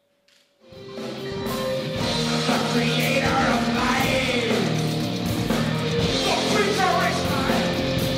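Live rock band starting up about a second in after near silence: distorted electric guitar, bass and drums playing loud, heavy rock music.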